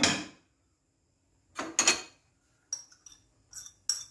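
A metal utensil knocking and clinking against a cooking pot: a sharp knock, two more, then a run of lighter ringing taps about two a second.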